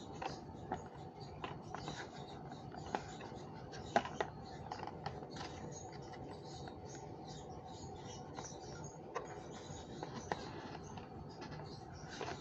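A small screwdriver working a screw out of a plastic base: faint scratching and light clicks, with a sharper click about four seconds in.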